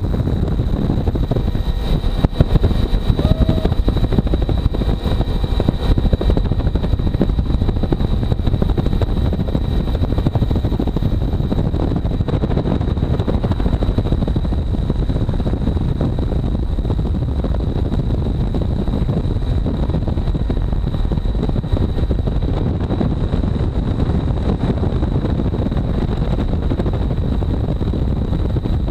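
Helicopter in flight, heard from its open doorway: a loud, steady rush of rotor and engine noise with a thin, steady high whine over it.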